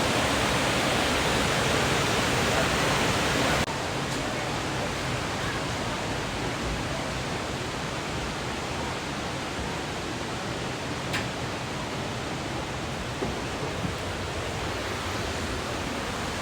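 Steady rushing of a waterfall and creek water, a full even noise that drops to a somewhat quieter level about three and a half seconds in.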